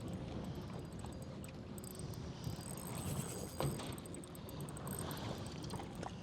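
Wind blowing over the microphone and water slapping against a small boat's hull, with scattered light clicks and one sharper knock about three and a half seconds in.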